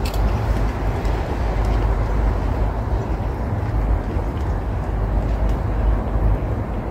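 Steady low rumble of wind buffeting the microphone, with faint crunching as a tortilla chip is chewed.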